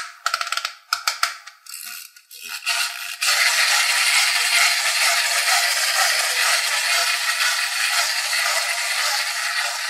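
Plastic wind-up panda toy: its key is turned with quick ratcheting clicks for about the first three seconds, then its clockwork spring motor runs with a steady buzzing whir.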